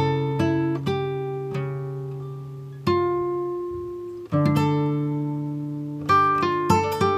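Background music: plucked guitar notes and chords that ring and slowly fade, with a quicker run of notes near the end.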